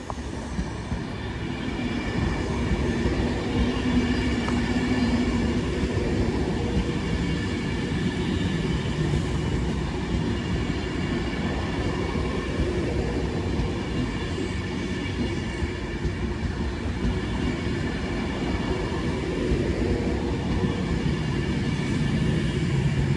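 Class 390 Pendolino electric train running along the platform: a steady rumble of wheels on the track with faint, steady high tones above it.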